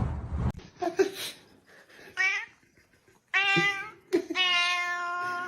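A domestic cat meowing three times, the last meow long and held steady.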